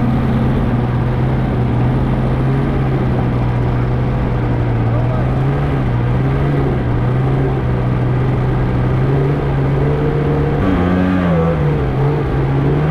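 Snowmobile engine running at a steady pitch, its note wavering and dipping near the end.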